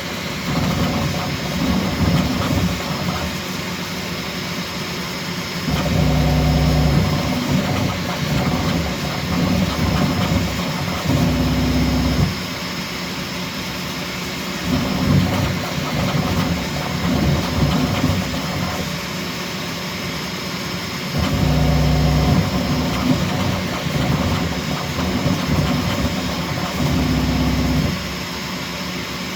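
Bambu Lab X1C 3D printer printing at its fastest speed setting. Its stepper motors hum in tones that shift every few seconds as the print head and bed move in changing patterns, over the steady whir of its fans.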